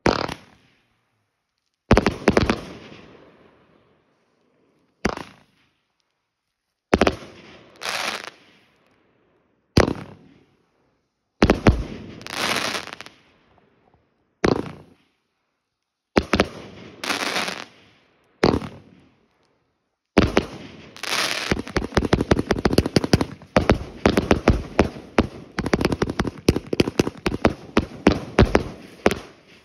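Aerial fireworks going off: about a dozen separate shots over the first twenty seconds, each a sharp bang with a fading crackle, some in pairs about a second apart. From about twenty seconds in comes a dense rapid-fire string of pops and crackling.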